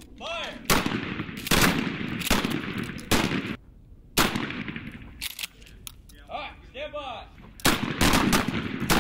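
Pump-action shotguns fired by several shooters on a firing line: about a dozen sharp shots at irregular spacing, some overlapping, each with a short echo, and a pause of about two seconds midway.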